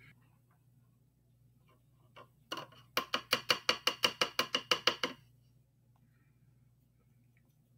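A small paint bottle shaken in the hand, giving a quick regular rattle of about fourteen clicks, some six or seven a second, lasting about two seconds, after a single knock just before it.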